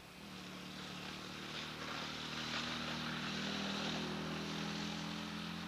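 A distant engine running with a steady drone, growing louder over the first few seconds and easing slightly near the end.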